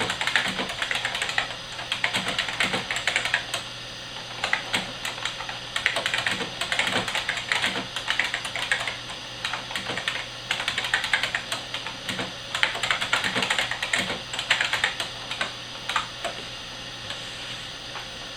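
Unicomp 101 buckling-spring mechanical keyboard being typed on: runs of rapid, sharp clicky keystrokes in bursts with short pauses between them, thinning to a few last strokes near the end.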